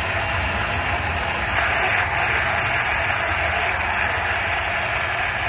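Countertop electric blender running at full speed, whirring steadily as it churns a thick tan drink into a vortex. It gets louder about a second and a half in.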